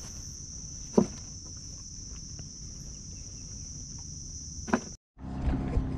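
Insects droning steadily at a high pitch, with a sharp click about a second in and another shortly before the drone cuts off near the end. After the cut comes a low steady hum.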